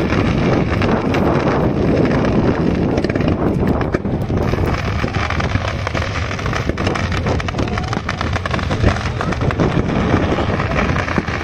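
Fireworks going off continuously: a dense run of crackles and pops over a steady low background noise, a little heavier in the first few seconds.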